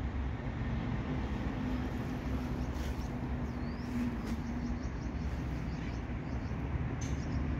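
Steady low outdoor rumble, as of traffic and wind on a street, with a faint steady hum that stops about five seconds in and a few faint high bird chirps.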